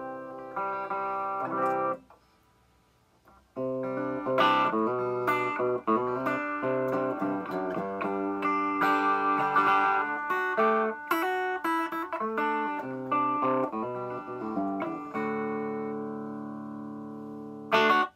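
Gibson Les Paul Studio Plus Top electric guitar played on the clean channel of a small Vox tube amp: picked chords and single notes, stopping about two seconds in and picking up again a second and a half later. Near the end a chord is held and rings out, then a sharp strum is cut off.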